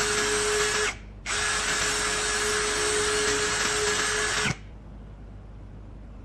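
Electric drill boring a pilot hole into a softwood board, its motor running for about a second, pausing briefly, then running steadily for about three seconds before stopping.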